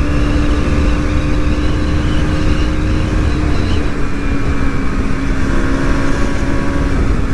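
KTM Duke motorcycle running flat out at about 128 km/h: a steady engine drone over heavy low wind rumble. A faint odd whistle comes from the aftermarket rear wheel cover, which only sounds at high speed.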